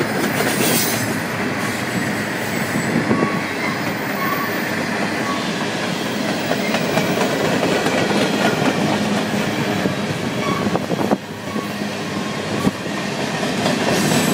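Freight cars of a manifest train rolling past on the rails: a steady rumble and clatter of steel wheels, with a few short, faint wheel squeals.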